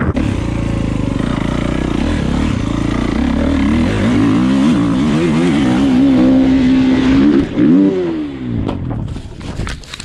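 Dirt bike engine running hard under the rider, the revs rising and falling with the throttle, held high for a moment, then dropping off about eight seconds in. Near the end come a few sharp knocks and scrapes as the bike goes down into the grass.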